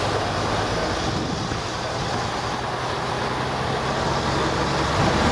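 Engine of a classic open-top double-decker bus running steadily on the move, with a constant rush of wind across the open upper deck.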